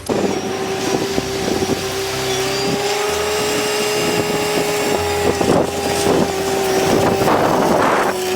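A small motor running with a steady whine over a steady rushing hiss. It starts abruptly.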